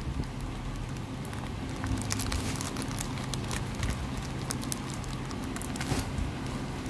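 Packaging being handled and wrapped by hand, crinkling and rustling with many scattered small sharp ticks, over a faint low steady hum.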